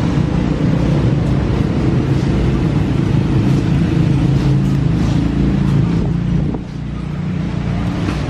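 A steady low mechanical drone, like engines running, that dips briefly about six and a half seconds in.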